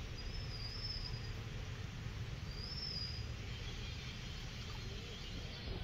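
Outdoor background with a steady low rumble and two short high bird chirps about two seconds apart, then a sharp knock at the very end.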